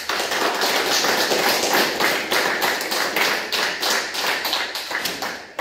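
A small group applauding, many hands clapping at once; the clapping starts suddenly and dies away near the end.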